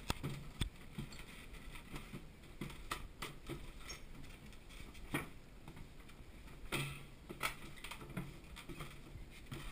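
Footsteps going down wooden steps: irregular knocks and scuffs, with a few sharper footfalls near the start and again around five and seven seconds in.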